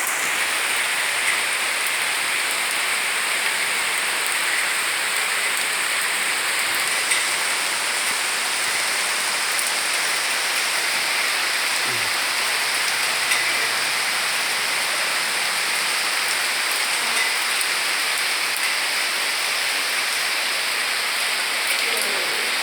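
Rain falling steadily: a dense, even hiss of drops, with a few louder single drops standing out now and then.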